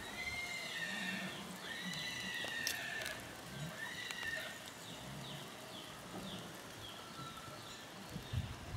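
Animal calls: a series of high, arching pitched notes, each under a second long, coming one after another over a faint background hiss.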